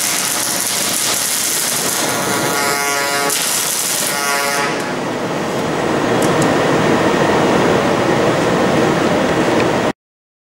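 Robotic MIG welding arc at a FANUC Arc Mate 100iB torch fed by a Commercy Soudure welding system, crackling and sizzling steadily, with a whine of evenly spaced tones joining about three seconds in. About five seconds in the arc sound stops and a louder, lower rushing noise takes over, then everything cuts off abruptly near the end.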